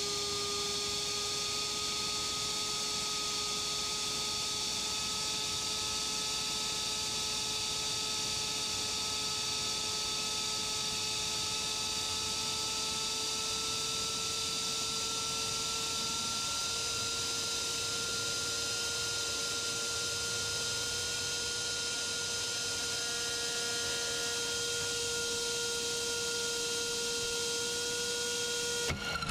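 Drone motor spinning a three-blade propeller inside a 3D-printed guard ring on a test stand: a steady whine that rises slowly in pitch, breaking off abruptly at the very end.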